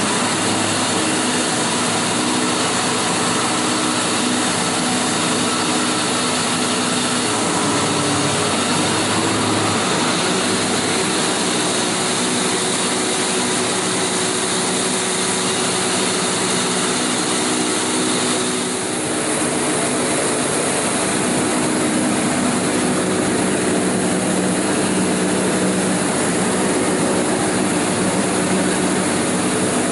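Mar-Masz MS DNS-200-55 double-shaft multi-rip saw being switched on and running: a steady machine hum with several tones, which shift about eight to ten seconds in as the start buttons are pressed in turn, and a brief dip in level about eighteen seconds in.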